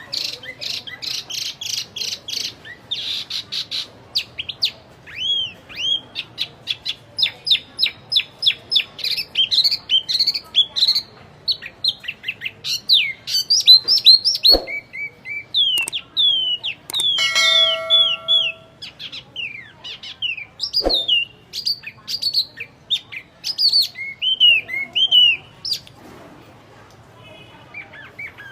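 Wambi songbird singing a fast, varied song of short chirps, whistled slurs and trills in quick succession, with a harsher buzzy note a little past halfway. Two brief clicks are heard in the second half.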